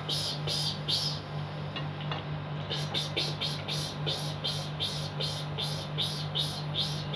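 Rapid, evenly spaced high-pitched chirping, about three chirps a second, that breaks off about a second in and resumes about a second and a half later, over a steady low hum.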